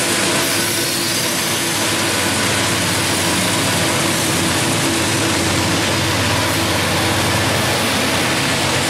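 Diesel-electric freight locomotives passing close while working up a steep grade: a loud, steady engine run with a low hum and a held mid-pitched tone under a wash of blower and wheel noise.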